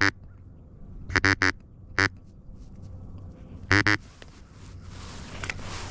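Duck call blown in short, loud quacks to work a duck that won't finish: three quick quacks about a second in, a single one, then two more near four seconds. A rustling hiss follows near the end.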